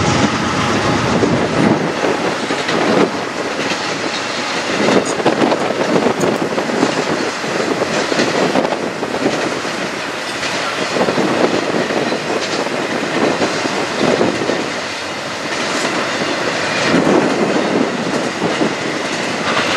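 Intermodal freight train of double-stack container well cars and trailers on flatcars rolling past, a steady rumble with repeated clatter of wheels over the rails.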